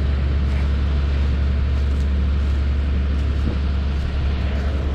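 A vehicle engine running steadily, heard as an even, deep rumble.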